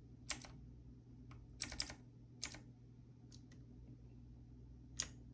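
Key presses on an E-Element Z-88 mechanical keyboard with blue switches: about eight faint, separate clicks at uneven intervals as function-key combinations are pressed, the loudest one about five seconds in.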